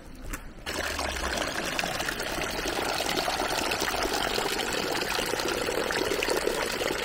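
Water running steadily from the bamboo spouts of a stone shrine purification basin (chōzuya) and trickling down the stone onto pebbles. It starts abruptly just under a second in.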